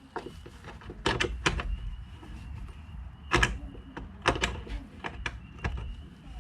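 Irregular clicks and knocks of a hand tool working the small mounting nuts on an ATV tail light, metal tapping against metal and plastic as the nuts are loosened. About eight sharp clicks come at uneven spacing.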